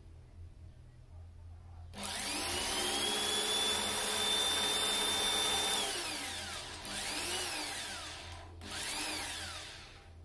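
Small cordless drill boring into a harp's wooden neck for a lever screw: about two seconds in the motor whines up to a steady high pitch for about four seconds, then winds down, followed by two short bursts of the trigger, each spinning up and back down.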